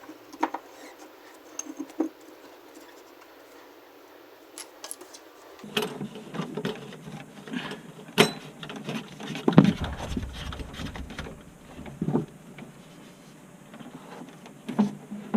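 Irregular clinks, knocks and rattles of tools and metal parts being handled, sparse at first and busier from about six seconds in, with a few sharper knocks.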